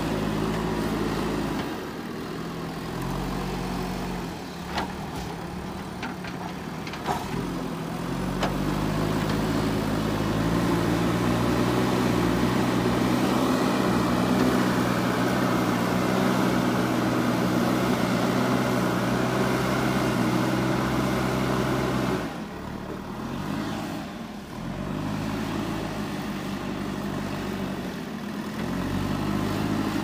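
JCB 3DX backhoe loader's diesel engine running, its speed rising to a steady higher pitch and falling back as the machine works, dropping about two-thirds of the way through and picking up again near the end. A few sharp knocks sound in the first third.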